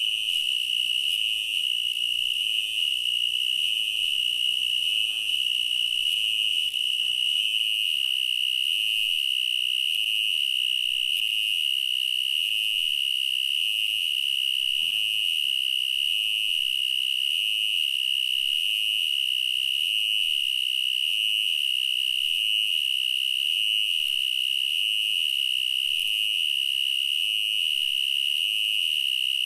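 Cricket trilling, a steady high-pitched trill that goes on without a break.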